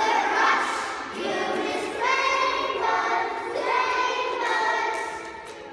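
A choir of young children singing together, with several long held notes.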